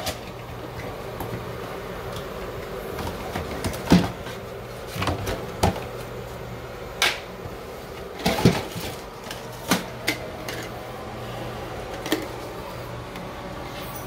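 A cardboard box being handled and opened, with scattered knocks and clicks, the loudest about 4 and 8.5 seconds in, over a steady low hum.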